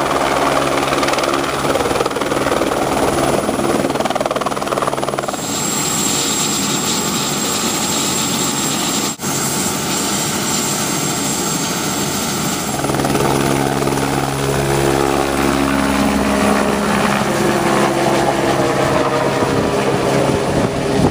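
Single-engine light helicopter, its rotor beating steadily as it flies. About five seconds in the sound changes to the helicopter on the ground with its rotor turning, and a high steady whine over the engine noise. A little past halfway the rotor beat of flight returns.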